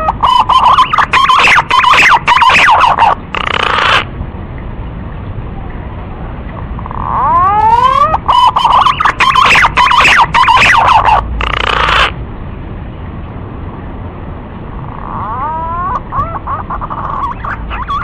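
Male pink-necked green pigeon (punai gading) calling in repeated bouts, about every eight seconds. Each bout opens with a few rising whistled notes and runs into a quick, warbling series of notes. The third bout, near the end, is fainter.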